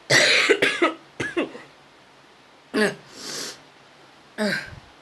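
A sick person coughing, with a sore throat: a fit of several harsh coughs in the first second and a half, then single coughs about three seconds in and near the end, with a breath drawn between them.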